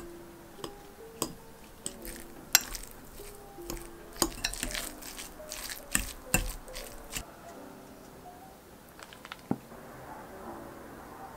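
Metal fork clinking and scraping against a glass bowl while mashing hard-boiled eggs: irregular sharp clinks, busiest in the middle, with a last single clink near the end.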